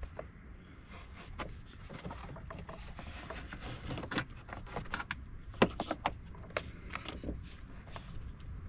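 Irregular clicks and knocks of hands handling a newly fitted car battery's terminal and top under the hood, the sharpest knock a little past halfway, over a low steady rumble.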